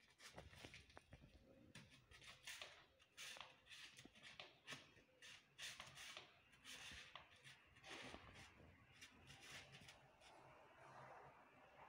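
Faint rustling and scratching: kittens scrambling over plastic sheeting, a woven plastic sack and cardboard, a quick irregular run of short brushes and scrapes that eases off near the end.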